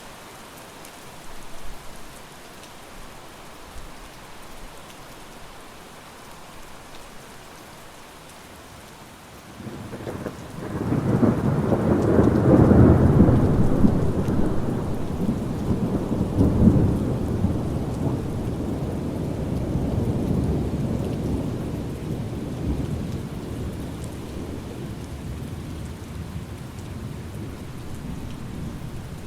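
Steady rain falling, with a long roll of thunder that builds about ten seconds in, is loudest a few seconds later with a second swell, then rumbles away slowly.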